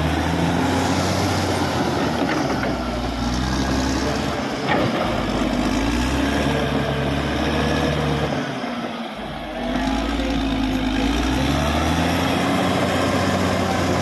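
Caterpillar D6R XL crawler bulldozer's diesel engine working under load as the blade pushes a pile of earth. The engine note rises and falls, with a few short metallic clanks. The level dips briefly about nine seconds in, then the engine comes back up.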